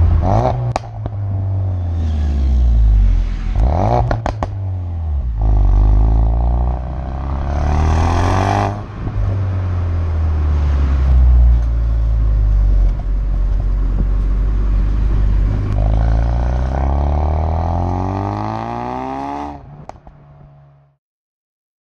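Ford Focus RS's 2.3-litre turbocharged four-cylinder exhaust, heard close to the tailpipes while driving, its note rising under acceleration and dropping off between gears again and again, with a few sharp cracks. It fades out near the end.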